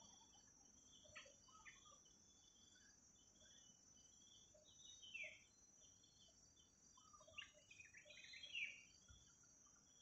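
Faint forest ambience: a steady high-pitched insect drone with scattered short bird chirps and calls, which come in a brief burst about halfway through and cluster more densely near the end.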